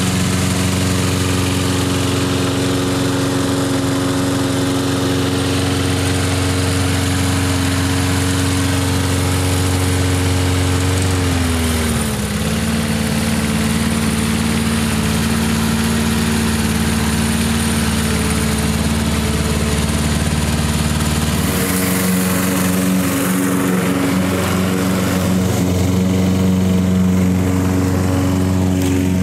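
Briggs & Stratton four-stroke engine on a Lawn-Boy commercial push mower running steadily. Its pitch drops a little about halfway through, and its tone changes about three-quarters of the way in.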